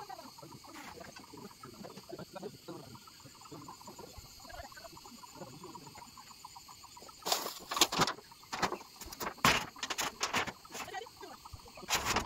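Chickens clucking faintly, then from about seven seconds in a run of loud, sharp, irregular knocks, with a few more near the end.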